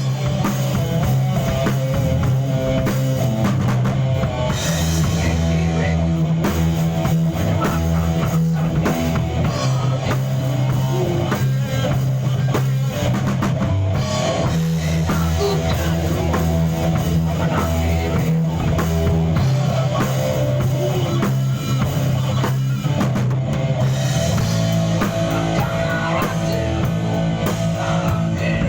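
A rock band playing a song, with a drum kit keeping a steady beat under guitar and bass.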